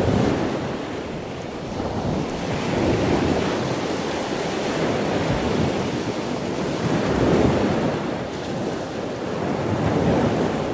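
Ocean surf washing ashore, a steady rush that swells and fades in slow surges every few seconds.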